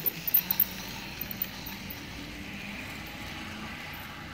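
Toy train running on plastic track, a steady whir and rattle of motor and wheels that grows louder as it passes close by, with a few sharp clicks in the first second.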